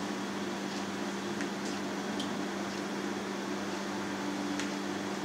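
Steady low machine hum of running room equipment, with a few faint ticks.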